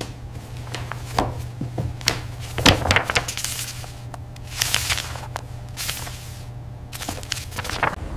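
Pages of an old bound notebook being handled and turned on a wooden desk: a series of paper rustles and soft knocks, over a steady low hum.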